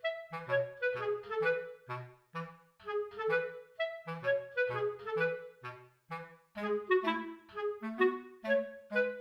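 Background music: a bouncy tune of short, detached notes with a bass line under it, moving in a steady beat.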